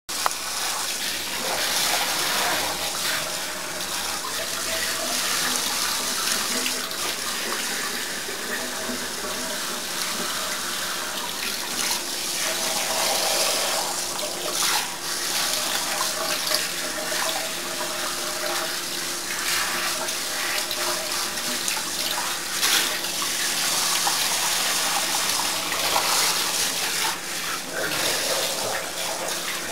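Water from a hand-held shower head spraying steadily into a bathtub, splashing over a wet cat and into the bathwater.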